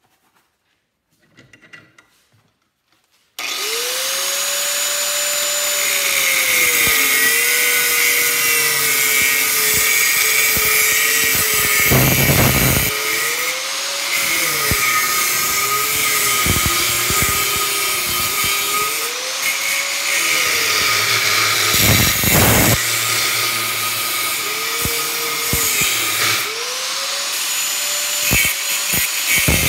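An angle grinder starts up about three seconds in and cuts into a magnetron's core held in a vise. Its motor pitch dips and recovers again and again as the disc bites and eases off.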